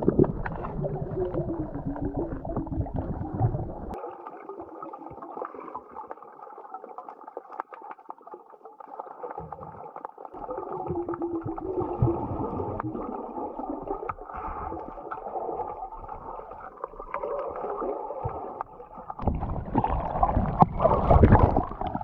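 Muffled underwater sound picked up by an action camera below the surface: a steady rush of water with gurgling. Near the end it grows louder and fuller as the camera comes up through the surface.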